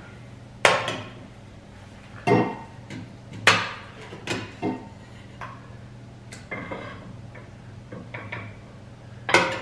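Serving ladle and cutlery clinking and scraping against a stainless steel cooking pot and dinner plates: several separate sharp clinks, a few seconds apart.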